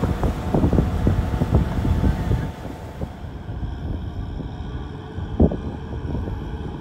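Kubota tractor's diesel engine running under load as it ploughs through flood water and mud, with water sloshing and wind buffeting the microphone. About halfway through the sound drops to a quieter, more distant engine hum, with a single thump near the end.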